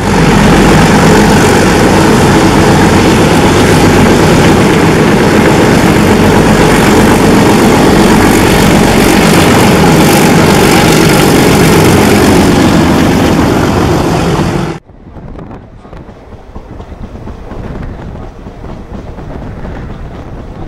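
A diesel locomotive working hard, its engine noise very loud and dense, cuts off abruptly about three-quarters of the way through. It gives way to the softer rush of wind and a running train heard from a carriage doorway.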